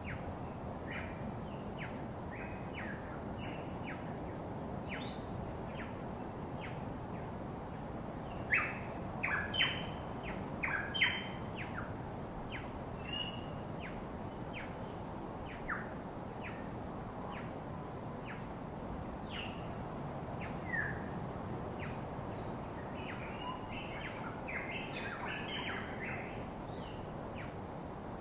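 Wild birds chirping and calling, many short chirps scattered throughout with busier spells about eight to eleven seconds in and near the end, over a steady low rush and a thin steady high tone.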